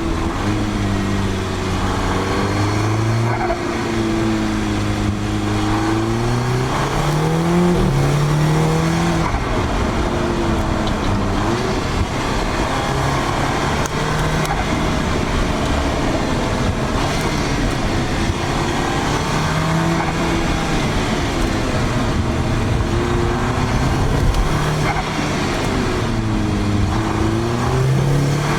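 Audi S3 8P's turbocharged 2.0 TFSI four-cylinder, fitted with an aftermarket downpipe, running under way with steady road noise. The engine note climbs about six to eight seconds in, then drops and keeps rising and falling with the throttle.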